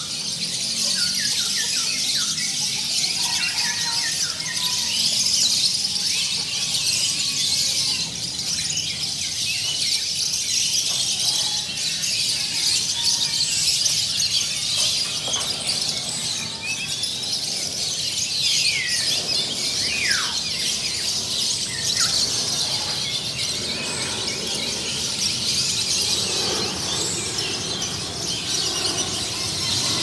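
Many caged songbirds of mixed species chirping and twittering at once in a dense, unbroken high-pitched chorus. A few clear falling whistles stand out around the middle.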